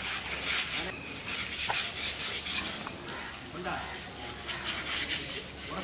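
A bathing elephant's wet hide scrubbed by hand in repeated scraping strokes, about one a second.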